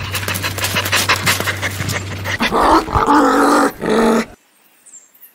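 A dog panting in rapid breaths, then about two and a half seconds in a louder growling dog call lasting about two seconds that cuts off suddenly.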